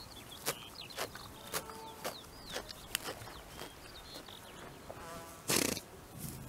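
Dartmoor pony grazing close by, tearing off grass in crisp pulls about twice a second, with small birds chirping. About five and a half seconds in there is a short, louder rush of noise.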